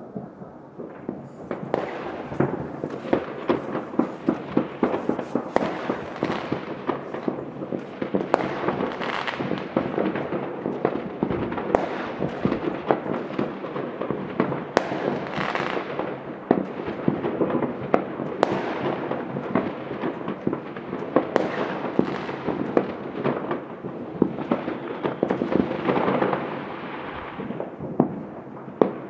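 Many fireworks and firecrackers going off at once across a city: a dense, continuous crackle of pops, building up about a second in, with louder single bangs scattered through and easing slightly near the end.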